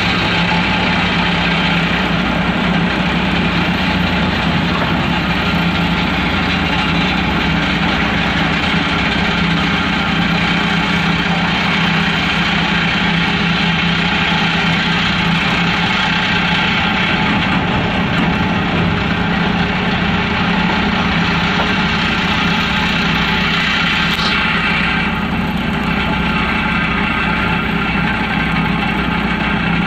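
Heavy diesel engines of earthmoving machines running steadily. A short click and a change in tone come about 24 seconds in.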